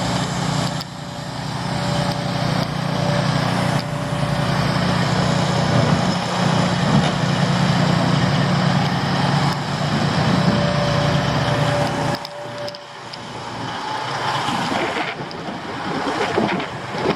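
Diesel engines of heavy earth-moving machinery running steadily while a dump truck is loaded with dirt. The deep engine note drops away about twelve seconds in.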